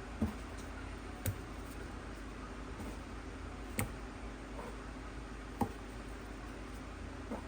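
Light clicks and knocks of a bowl and utensils being handled, five of them a second or more apart, over a steady low hum.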